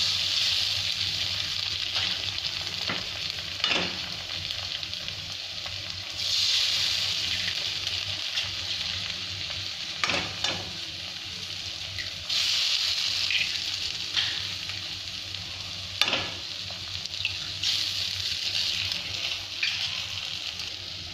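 Oil and masala sizzling steadily in a kadai as raw eggs are cracked in one after another. Three times a sharp tap of a shell on the pan is followed a couple of seconds later by the sizzle swelling as the egg drops into the hot oil.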